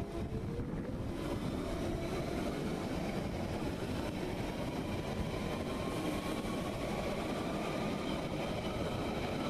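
London Underground Central Line 1992 stock tube train running past at close range, its wheels rumbling on the rails under a steadily rising traction-motor whine as it picks up speed.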